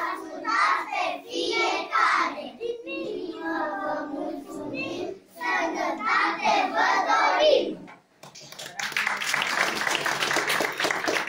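Children's voices carrying a sing-song line, broken by short pauses. At about eight and a half seconds the voices give way to audience applause.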